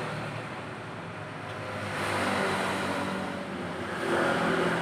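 Motor vehicle engine noise that swells and fades twice.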